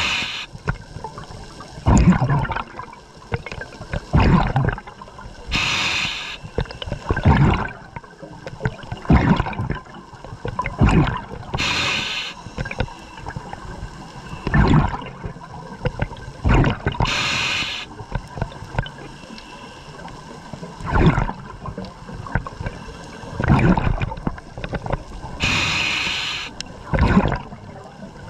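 Scuba diver breathing through a regulator underwater: a short hiss of inhalation about every six seconds, with bubbling rumbles of exhaled air between the breaths.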